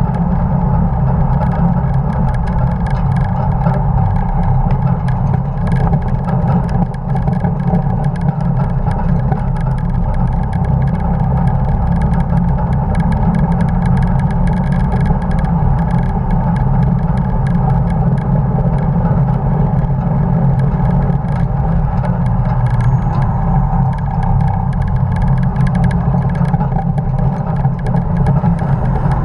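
1950 Dodge pickup truck's engine running steadily under load at racing speed, heard from a camera mounted on the outside of the truck.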